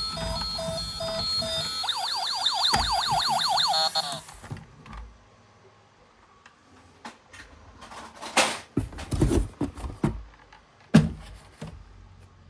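Toy emergency vehicle's electronic siren: a pulsing beep pattern that switches about two seconds in to a fast warbling yelp of about five sweeps a second, then cuts off suddenly. Scattered clicks and knocks follow, the loudest near the end.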